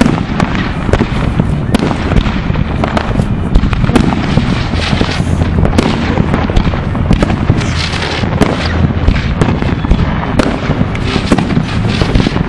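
Many fireworks going off at once: a dense, irregular run of sharp bangs, several a second, over continuous loud noise.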